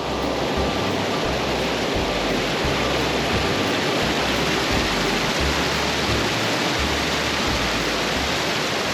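Loud, steady rush of a creek running high with spring runoff, water pouring over rocks in a continuous roar of white noise.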